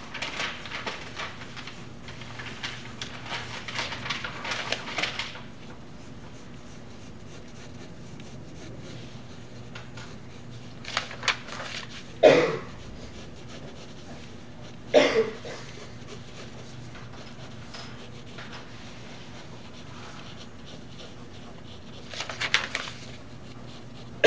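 Graphite pencil sketching on paper: runs of quick scratchy strokes for the first few seconds and again near the end, with a steady low hum underneath. Around the middle there are two short, louder sounds.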